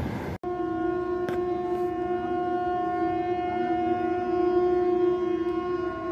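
A train's rolling rumble cuts off abruptly, and a locomotive horn then sounds one long, steady, unbroken note.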